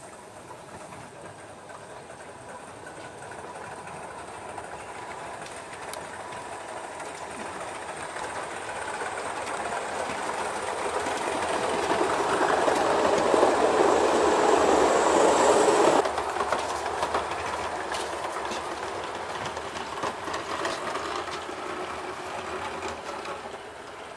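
O gauge model train running along the track, its wheels rattling and clicking over the rails, growing steadily louder as it approaches. The sound drops off sharply about sixteen seconds in, leaving a quieter rattle.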